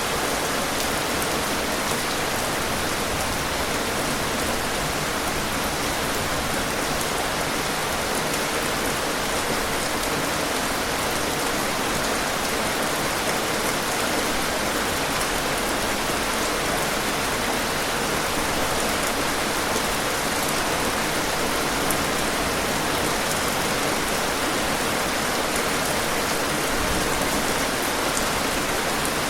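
Heavy rain falling steadily: an even, unbroken hiss of countless drops, with fine ticks of single drops in the upper register.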